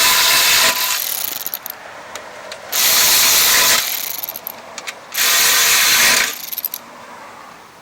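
A shop tool running in three noisy bursts of about a second each, each trailing off raggedly.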